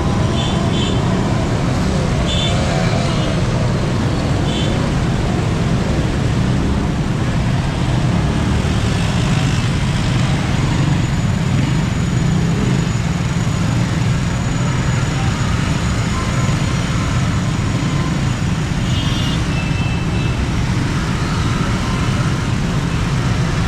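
Steady city road traffic: vehicle engines and tyres making a continuous low rumble, with a few brief high chirps near the start and again later.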